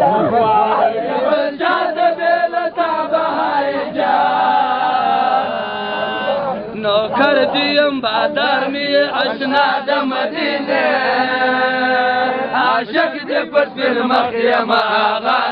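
Men singing a devotional chant in praise of Medina, the voices holding long, wavering notes and swelling back in between phrases.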